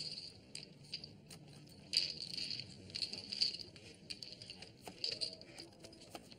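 Poker chips clicking and clattering against each other in several short runs.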